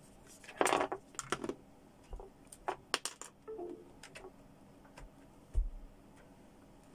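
Handling noises of a USB charging cable being plugged into a laptop and a plastic earbud charging case being moved: a cluster of light plastic clicks and rattles about a second in, then scattered clicks from the laptop's touchpad. A dull thump near the end.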